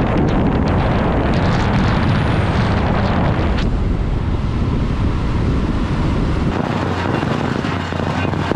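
Wind buffeting the microphone, mixed with road and engine noise from a motorcycle riding along a highway. About six and a half seconds in, the deep rumble drops away, leaving a lighter steady background noise.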